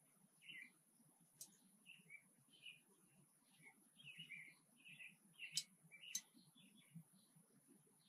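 Faint small birds chirping in short, scattered notes, with a few sharp clicks among them.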